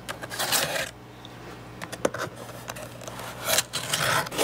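Cardboard shipping box being cut open with a box cutter: a few short scrapes of the blade through packing tape and cardboard, with scattered sharp clicks and taps as the box is handled.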